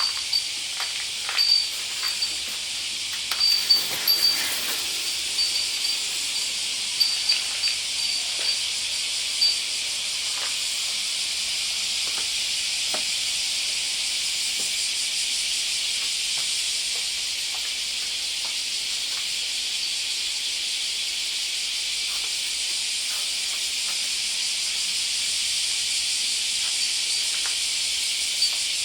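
A dense chorus of cicadas shrilling steadily, with a high pulsing call over it during the first ten seconds or so and a few short knocks in the same stretch.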